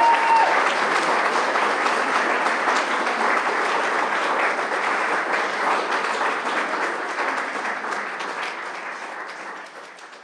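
Audience applauding: a room full of people clapping steadily, fading out over the last few seconds.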